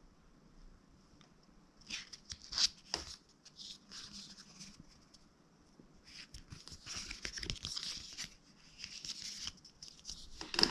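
Cardboard and paper packaging of a Pokémon advent calendar being torn open and handled. A few sharp rips come about two seconds in, then a longer stretch of rustling and crinkling.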